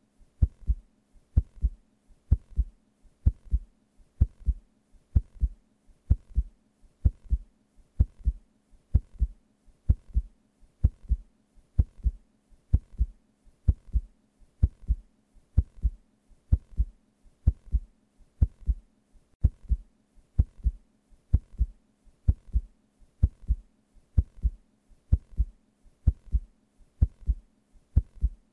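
Recorded heartbeat sound effect: a steady, even rhythm of paired low thumps (lub-dub) repeating throughout.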